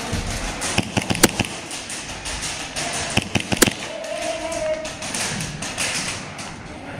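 Airsoft gunfire in an indoor arena: two quick volleys of sharp cracks, one about a second in and another about three seconds in, over a steady din of players moving.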